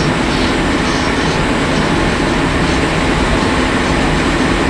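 Kotoden Kotohira Line electric train running along the track, a loud, steady rumble of wheels and running gear heard from inside the driver's cab.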